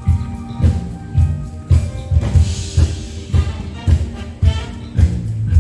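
Music with a steady beat, a low drum hitting about twice a second under sustained instrument notes.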